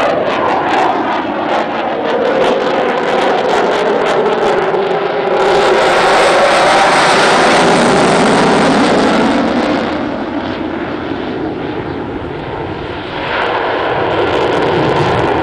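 Eurofighter Typhoon's twin EJ200 turbofan jet engines in afterburner, a loud roar from a jet flying its display overhead. Its tones sweep slowly as the jet passes. It is loudest about six to nine seconds in, eases off, then builds again near the end.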